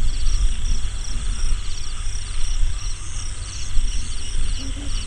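Wind rumbling on the microphone, with crickets chirping in quick repeating pulses high above it.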